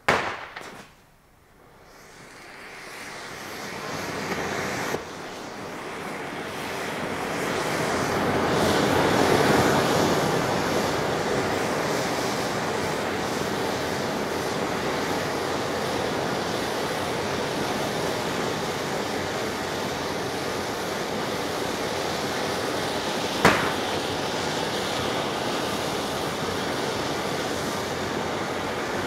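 Van der Nat ground-fountain firework starting with a sudden burst, then a hiss that builds over several seconds into a steady rushing spray of sparks. A single sharp crack comes about twenty-three seconds in.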